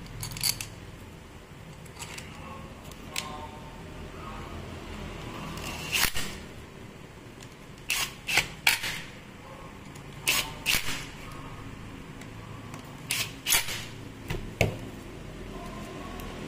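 Sharp metallic clicks and knocks of angle grinder parts being fitted together, some in quick groups of two or three, with short whirs of a small cordless driver running screws into the grinder's gear housing.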